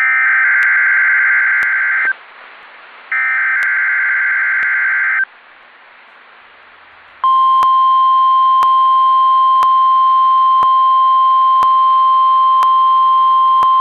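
NOAA Weather Radio alert signal. It opens with two buzzy data bursts of the SAME alert header, each about two seconds long and a second apart. About seven seconds in, the steady 1050 Hz warning alarm tone begins and holds. Faint ticks come about once a second throughout.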